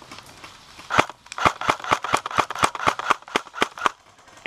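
Airsoft rifle firing a rapid string of about seventeen shots, roughly six a second, starting about a second in and stopping just before the end, shortly before the shooter calls a reload.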